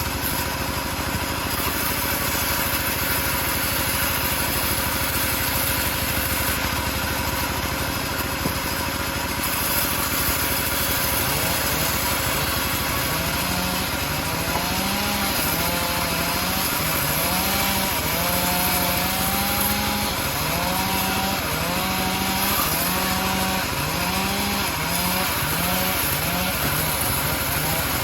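Homemade bandsaw running steadily while cutting teak wood, a continuous mechanical saw-and-motor noise. From a little under halfway a short wavering, rising-and-falling whine repeats about once a second over it.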